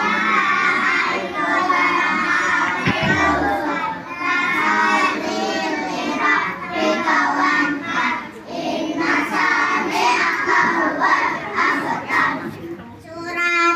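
A group of young children singing together, led into a microphone and amplified over a loudspeaker.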